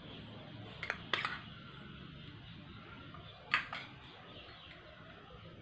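A few faint, short clicks of a spoon against a steel bowl and plate, in two pairs about a second in and about three and a half seconds in, over quiet room hiss.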